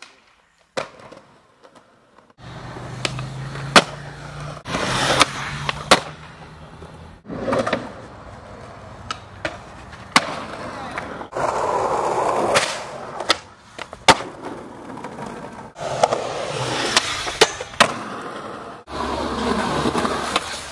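Skateboard wheels rolling on concrete, broken by sharp pops and hard landings of the board smacking down, over several short takes that cut in and out abruptly.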